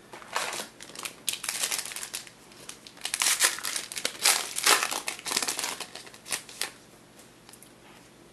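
Crinkling and rustling of a trading-card pack's wrapper being handled and crumpled, in quick irregular bursts, dying away near the end.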